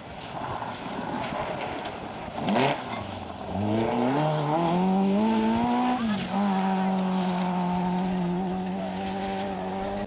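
A rally car passes close by with a quick falling sweep about two and a half seconds in. Then a rally car engine is heard working hard: its pitch climbs in short steps for a couple of seconds, dips once, and holds a steady high note until the sound cuts off.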